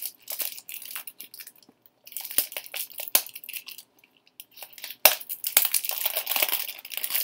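Clear cellophane shrink-wrap crinkling and crackling as it is picked at and peeled off a cardboard tarot deck box, in uneven bursts with short pauses and a few sharp clicks.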